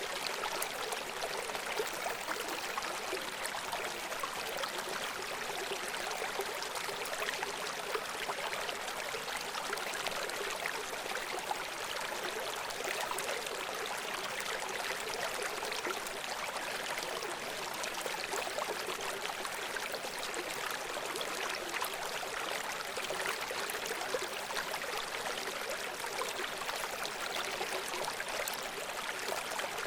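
River water running over rocks: a steady rush with fine splashing and gurgling, lacking deep rumble.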